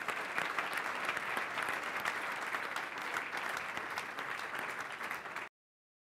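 Audience applauding steadily, the sound cutting off abruptly near the end.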